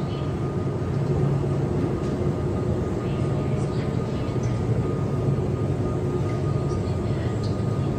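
Supermarket room tone: a steady low machinery hum with a thin steady high tone over it and a few faint clicks.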